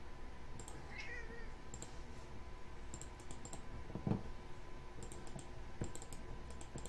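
Computer mouse clicking in quick clusters of two to four clicks as drawing points and objects are picked in CAD software. There is a low thump about four seconds in and a brief wavering high-pitched sound about a second in.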